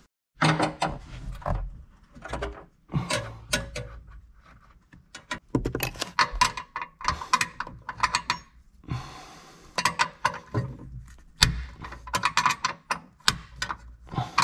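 A 10 mm ratcheting wrench clicking in quick runs, with metal clinks, as the factory amplifier's mounting nuts are loosened.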